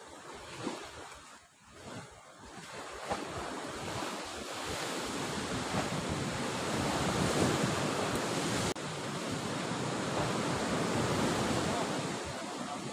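Sea surf washing and breaking against a rocky shore, mixed with wind buffeting the microphone; the rush swells from about three seconds in and stays strong, with a short sudden drop about nine seconds in.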